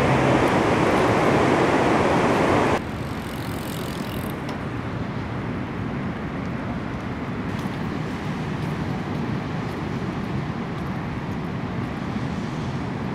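Steady rush of the swollen Bow River in flood. It cuts off abruptly about three seconds in, giving way to a quieter steady rumble of background noise.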